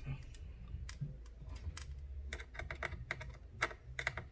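Irregular small clicks and ticks of a precision Phillips screwdriver turning a stubborn tiny screw into a laptop's SSD mount, coming faster in the second half.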